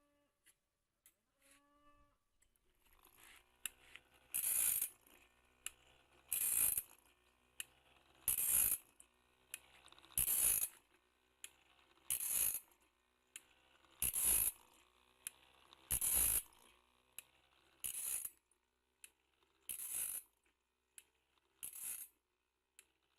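Automatic bandsaw blade sharpener grinding the blade tooth by tooth. Starting about three seconds in, a short grinding burst comes about every two seconds, with a light click between strokes as the machine advances to the next tooth.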